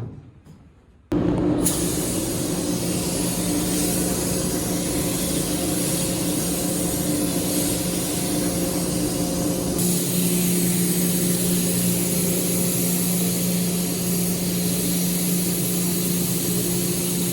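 Spray painting in a paint booth: a loud, steady hiss of air from the spray gun over the steady hum of the booth's fans. It cuts in abruptly about a second in and shifts slightly in tone about ten seconds in.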